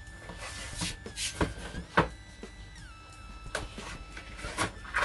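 Soft background music of sustained tones over the handling of a cardboard box being opened: several short knocks and scrapes, the loudest about two seconds in.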